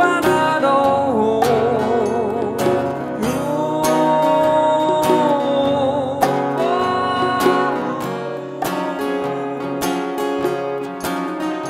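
A male voice sings a slow Thai pop song with vibrato over strummed acoustic guitar, with an electronic drum kit keeping a steady beat. The singing stops about eight seconds in, leaving the guitar and drums.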